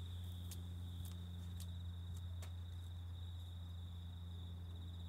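Holden VY Commodore S's 3.8-litre V6 idling steadily through its stock exhaust, warm after a drive, as a low even hum at the tailpipe. Crickets trill continuously over it.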